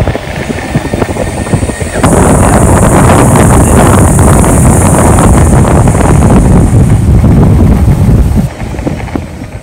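Wind buffeting the microphone as the rider speeds along on an electric skateboard: loud from about two seconds in, falling away shortly before the end.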